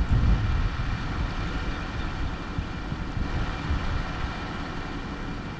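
A van's engine idling steadily, with a low rumble and a faint steady whine above it.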